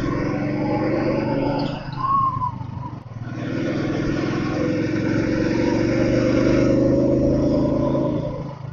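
Royal Enfield Thunderbird 350 Twinspark's single-cylinder four-stroke engine running under way, heard from the rider's seat; it runs smoothly. The engine sound drops briefly about three seconds in, then pulls steadily again before easing off near the end.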